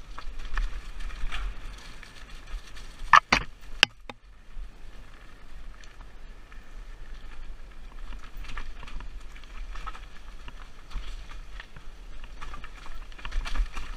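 Mountain bike rolling fast down a rough, rocky dirt trail: tyres crunching over dirt, leaves and stones, with the bike rattling over bumps and steady low wind rumble on the microphone. About three seconds in come two sharp, loud knocks as the bike hits something hard.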